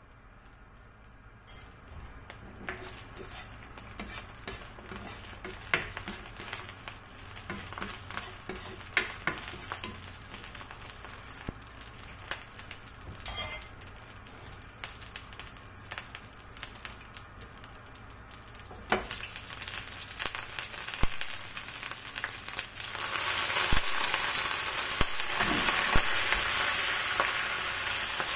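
Chopped garlic sizzling in hot oil in a nonstick frying pan, a steady hiss with scattered pops. A little over twenty seconds in, the sizzle jumps louder as pieces of cooked chicken go into the pan, with a few knocks as they are handled.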